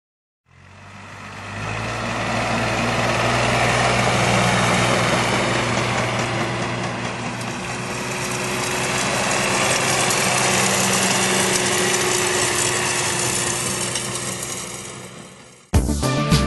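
Tractor engine running steadily as the tractor drives by, over a broad hiss. The sound fades in, swells twice and fades away. Music cuts in just before the end.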